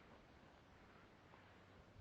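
Near silence: faint background hiss outdoors.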